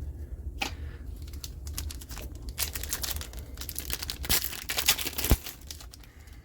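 Foil booster-pack wrapper crinkling and being torn open by hand, a dense run of crackles that is busiest in the middle, with a single low bump against the table about five seconds in.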